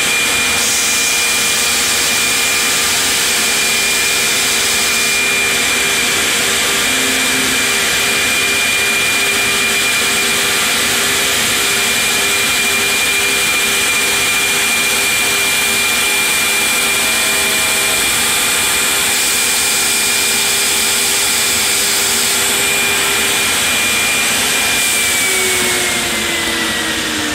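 CNC stair router's 7-horsepower spindle running at speed while routing a pine stair board, a steady high whine over a loud steady rushing noise. Near the end the spindle lifts clear and spins down, its whine falling in pitch as the noise drops.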